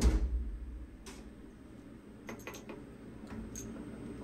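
Scattered light metallic clicks and taps as a machined steel block is handled and taken out of a CNC mill's fourth-axis chuck, after a hiss that dies away in the first half second.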